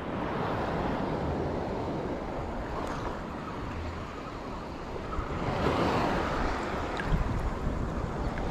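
Wind buffeting the microphone over choppy water lapping close by, with a swell in the wash about five and a half seconds in.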